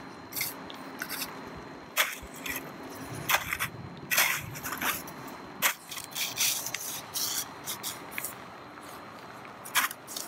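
A snow shovel digging into snow, irregular short scrapes and crunches as the blade cuts and lifts snow out of a pit.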